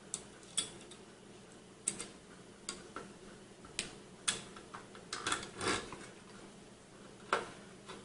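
Irregular sharp clicks and taps, about ten of them with a quick run around five to six seconds in, as an Arctic Cooling Freezer 7 Pro Rev 2 CPU heatsink is seated on the motherboard and its plastic mounting pins are pressed in.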